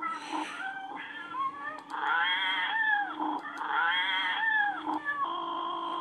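Lightsaber sound board (Petit Crouton running the Rebirth 3 sound font) playing recorded cat meows through its speaker as the clash effect: two long, wavering meows about two and four seconds in. A steady electronic saber hum sets in about five seconds in.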